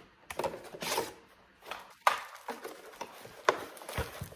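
Hands handling the box contents: about five sharp clicks and knocks with light rustling in between.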